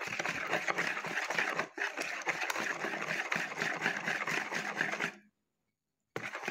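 Wire whisk beating eggs and condensed milk in a bowl: a fast, steady rattle of the wires scraping and tapping against the bowl. It cuts off suddenly about five seconds in, and after a short silence the whisking starts again near the end.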